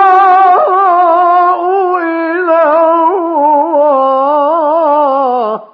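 A male reciter's voice in mujawwad (melodic) Quran recitation, holding one long ornamented note with a waving, trilled pitch, then stopping abruptly about five and a half seconds in.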